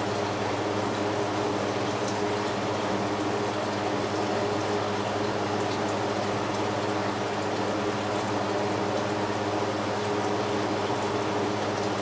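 Tap water running steadily into a sink and splashing into standing water, over a steady low hum.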